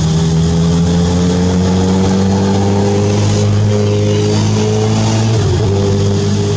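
An engine running steadily, its pitch rising slowly, with a brief dip about five and a half seconds in.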